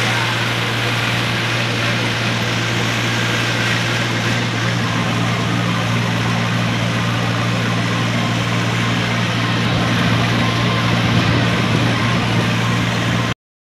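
Tractor engine running steadily while driving, heard from the open driver's seat: a constant low drone that cuts off suddenly near the end.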